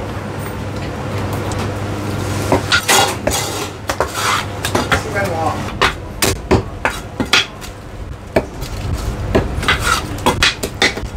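A heavy Chinese cleaver chopping a roast goose on a round wooden chopping block: a run of sharp, irregular chops and knocks, some with a short metallic ring. The chops begin about two and a half seconds in.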